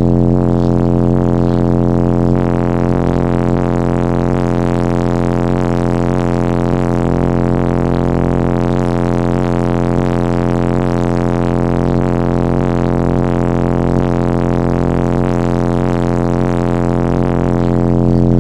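Ten 18-inch Sundown Audio Team NEO subwoofers, powered by a Dynamic Audio DA-7000.1 amplifier, playing one steady, very loud deep bass note heard inside the vehicle, with a dense stack of overtones above it.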